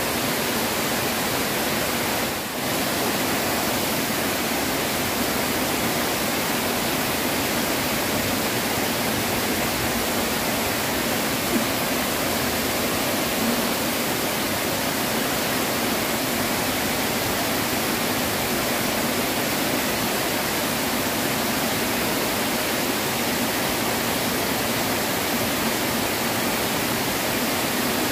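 River water spilling over a small stone weir into the pool below, a steady, unbroken rushing.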